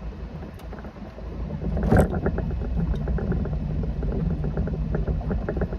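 3.0-litre four-cylinder MerCruiser petrol inboard with Alpha One sterndrive running at low speed, with a single sharp clunk about two seconds in as the single-lever control is put into gear. After it the engine runs a little louder with a rapid, even ticking.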